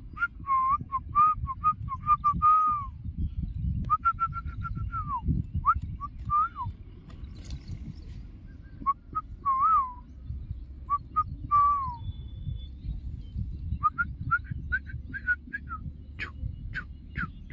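A bird calling in runs of short whistled notes, some sliding down in pitch, repeated in bursts, over a low rumble of wind on the microphone.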